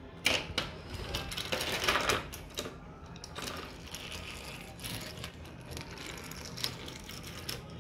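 Plastic toy trains and track pieces being handled and set down: scattered clicks and rattles, busiest about two seconds in.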